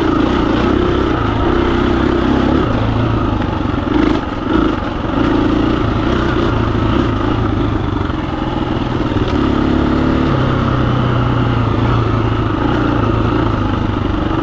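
KTM 350 EXC-F's single-cylinder four-stroke engine running while the bike is ridden. The throttle eases off briefly about four seconds in, then the engine pulls steadily again, its pitch shifting a little as the revs change.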